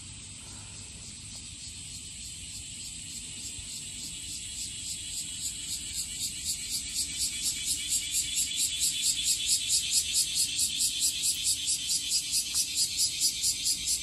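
Cicadas in the trees calling in a fast, even pulse of about four beats a second, high-pitched, growing steadily louder.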